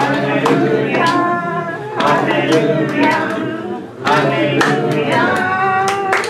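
Voices singing a worship song together, with sharp beats about once a second.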